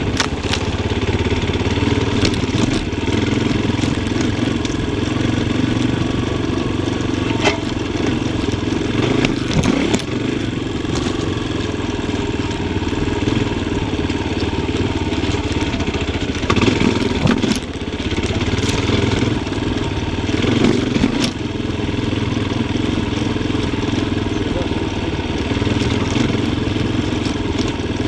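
Yamaha Tricker XG250's single-cylinder four-stroke engine running at low, shifting revs while ridden off-road, with a few short knocks and clatters along the way.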